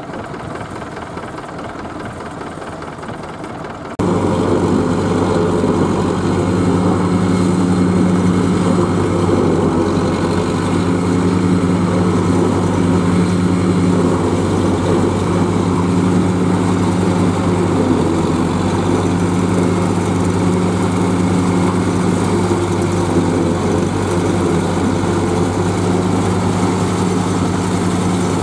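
For about four seconds a Zetor tractor's diesel engine runs while tipping a trailer of chopped maize silage. Then, suddenly louder, Zetor tractors' diesel engines work steadily under load while a tractor-drawn SKPU 220 forage harvester chops standing maize and blows it into a trailer running alongside.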